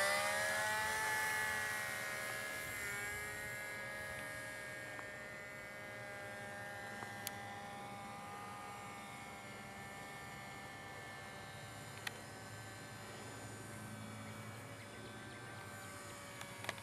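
Small brushless electric motor and propeller of a micro RC plane whining in flight, running on a one-cell LiPo at full throttle. The whine dips slightly in pitch over the first couple of seconds, then holds steady as it fades with distance, with a few faint ticks.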